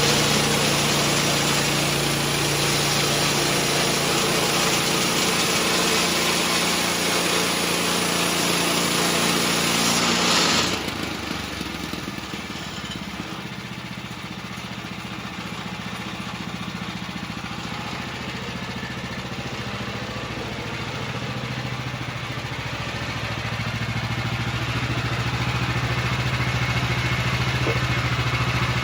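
Gas-engine bandsaw mill sawing through a red cedar log, its engine running under load beneath the hiss of the blade in the wood. About ten seconds in the cut ends abruptly, and the engine runs on alone, getting louder again toward the end.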